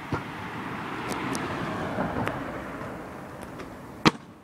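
Kick scooter wheels rumbling over concrete paving slabs, with a single sharp clack about four seconds in.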